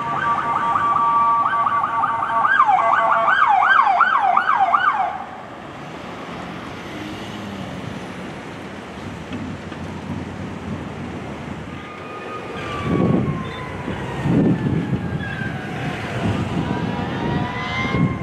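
Emergency vehicle electronic siren: steady tones, then a rapid rising-and-falling yelp about twice a second that cuts off suddenly about five seconds in, leaving street traffic noise. From about twelve seconds in a second siren wails, slowly falling and then rising in pitch, as another emergency vehicle approaches.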